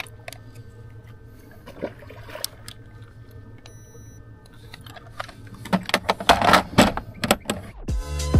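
Handling noise from a bass and fishing tackle being worked by hand: scattered clicks, then a dense clatter about six to seven and a half seconds in, over a steady low hum. Music with a heavy beat comes in just before the end.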